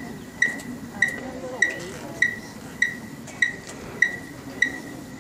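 Electronic metronome beeping steadily at about 100 beats a minute, one short high beep per beat, setting the tempo for a marching band's drill. A faint murmur of voices sits underneath.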